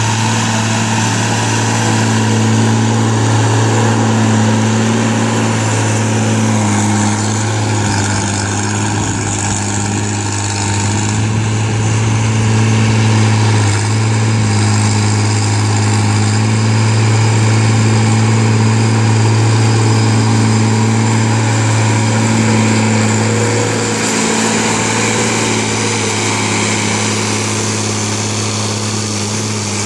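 Diesel engine of an International 3600A backhoe running steadily at a constant, low speed, a continuous even hum.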